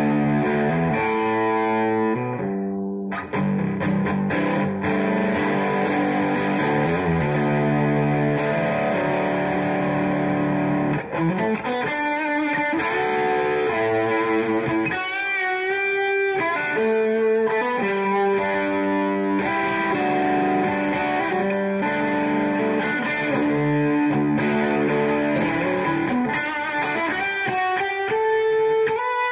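Electric guitar played through a Two-Rock tube amplifier and 2x12 cabinet: a melodic passage of single notes and chords, with notes bent and shaken with vibrato about halfway through.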